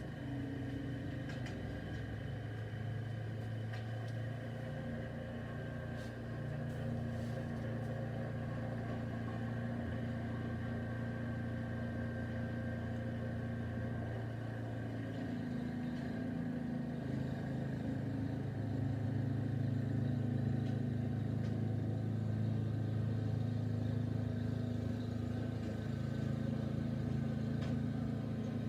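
An engine running steadily, its hum shifting pitch and growing louder about halfway through.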